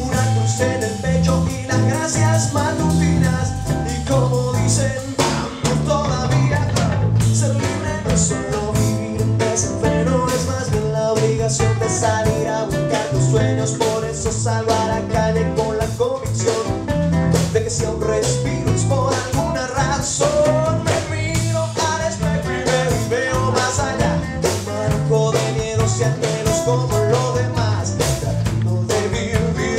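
Live rock band playing a song: a male voice sings over a strummed classical guitar, a second guitar, an electric bass and a drum kit keeping a steady beat.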